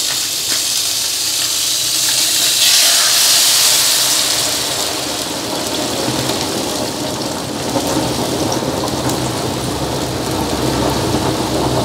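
Boiling water poured from a saucepan into a hot wok of pan-fried fish pieces to start a fish stock: a steady rushing, bubbling hiss, loudest about three seconds in.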